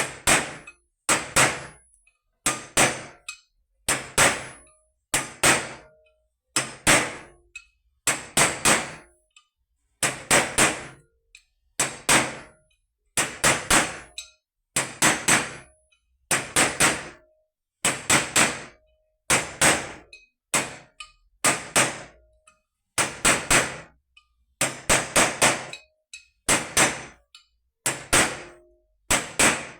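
Hammer blows driving a new 6303 ball bearing into place on a vehicle alternator, fitted cold without heating: sharp metallic strikes about once a second, each a quick double or triple hit with a short ring.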